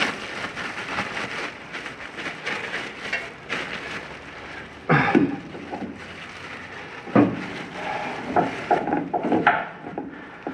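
Plastic arm-length glove and apron crinkling as a greasy roller chain is worked by hand, with sharp metal clanks of the chain about five seconds in and again about seven seconds in, then a run of shorter knocks.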